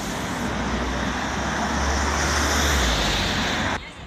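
Road traffic noise: a vehicle passing on the street, its tyre and engine noise swelling about two to three seconds in, then cutting off suddenly just before the end.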